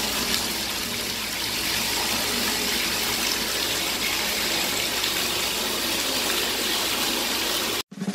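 Water gushing from a bathtub spout into the tub as it fills: a steady rushing hiss that cuts off suddenly near the end.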